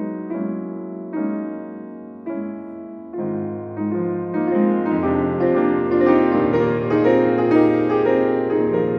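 Solo piano playing a slow piece: spaced, ringing chords at first, then about three seconds in low bass notes enter and the chords grow fuller and louder.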